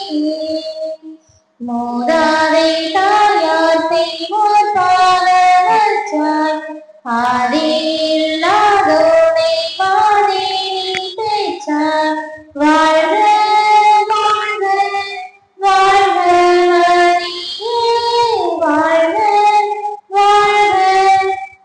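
A high voice singing a church hymn in phrases of a few seconds, with short breaks between the lines.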